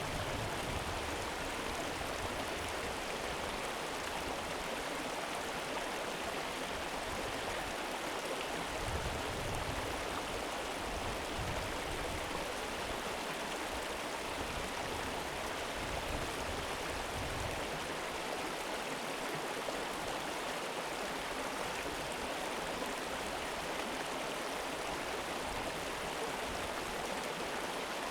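River water flowing and rippling, a steady even rush with no breaks.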